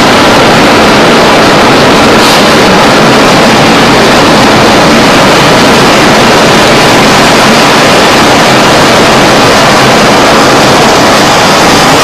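Tornado wind on the microphone: a steady, very loud noise at the limit of the recording.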